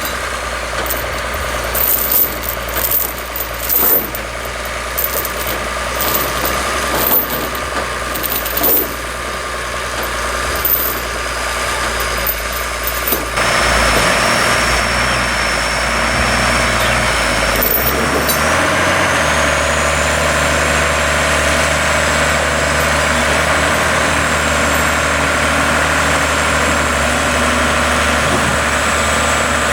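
Large sawmill machinery running, with a diesel-type engine hum and metal clanks and rattles. About halfway through, a louder steady machine noise comes in, and a high whine rises and then holds as the equipment comes up to speed.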